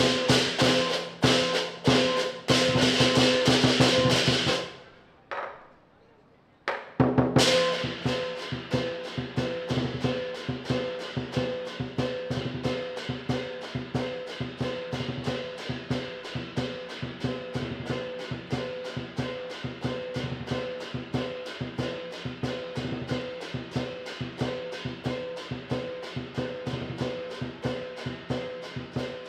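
Southern lion dance percussion: a large drum beating fast with cymbals crashing and a gong ringing. About four seconds in it fades away and breaks off for two seconds, then comes back with a loud crash and carries on as a steady, fast, slightly quieter beat.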